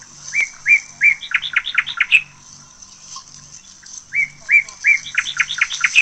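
A songbird sings the same phrase twice, about four seconds apart: three clear whistled notes, then a quick run of short rising notes.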